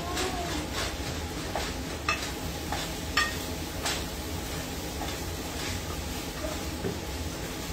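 Ground beef sizzling in a metal pan on the stove while a spatula stirs it and breaks it up, scraping and tapping against the pan at irregular intervals. Most of the scrapes and taps fall in the first half, the sharpest about three seconds in.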